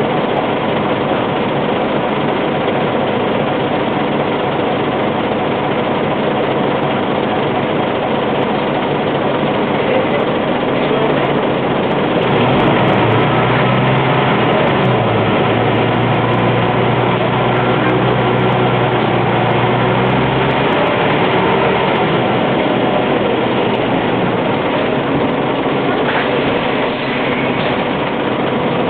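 Scania N94UB single-decker bus's five-cylinder diesel engine heard from inside the passenger saloon, running steadily. Its note grows stronger about halfway through, holds for several seconds and then eases back.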